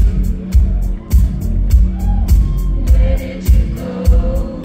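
Live indie-pop band playing through a concert PA. A heavy kick drum keeps a steady beat a little under two strokes a second, with cymbal ticks between the strokes and a woman's voice singing over it.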